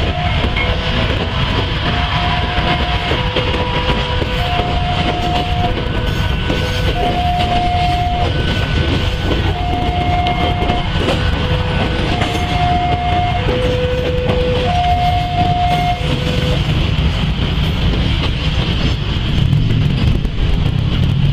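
Level-crossing warning alarm sounding a steady two-tone alternation, about a second per tone, stopping about 16 seconds in, over the low rumble of the passing airport train.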